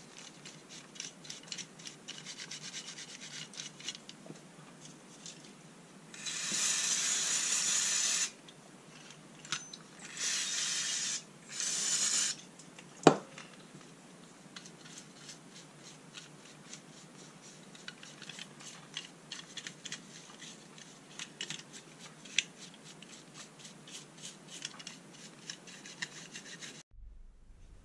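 A stiff bristle brush scrubbing over the steel and brass body of an old spring balance, a fast scratchy rubbing. Three loud hissing stretches come between about six and twelve seconds in, followed by one sharp click.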